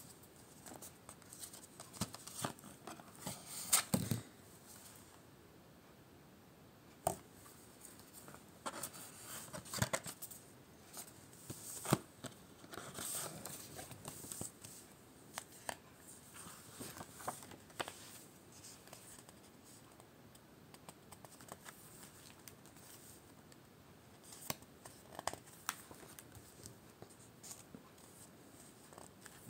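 Paper rustling and clicking as a CD booklet's pages are turned and printed inserts are handled. It comes in short scattered bursts with quiet gaps, and the loudest cluster is about four seconds in.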